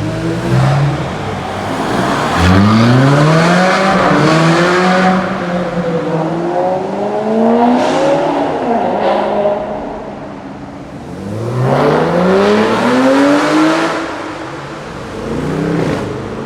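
Supercar engines accelerating hard in a road tunnel: several separate full-throttle pulls, each a climbing engine note that breaks off and drops back before the next.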